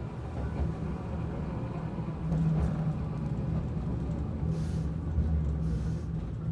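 Toden Arakawa Line streetcar running along its track, heard from inside the car: a steady low rumble of the wheels and running gear with a low hum.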